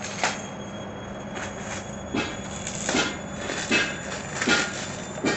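Washing machine running partway through its cycle: a steady hum with a rhythmic knock about every three-quarters of a second, settling into an even beat from about two seconds in.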